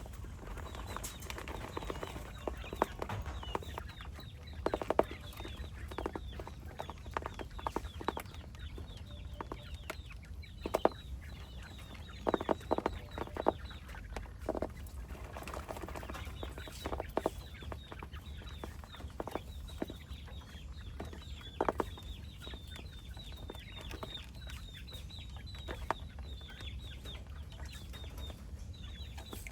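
Chickens clucking, with many short sharp taps scattered irregularly throughout, typical of birds pecking at feed.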